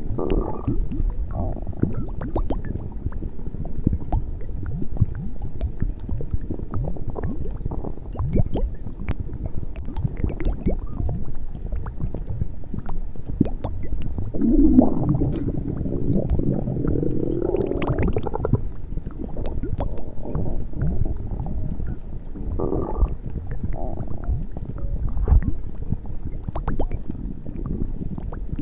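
A woman's stomach growling and gurgling without a break, full of small pops and squelches, with a louder, drawn-out pitched growl about halfway through.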